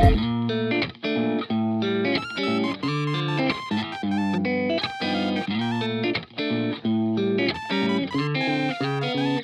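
Background music led by guitar, playing a line of quickly changing notes with a couple of brief pauses.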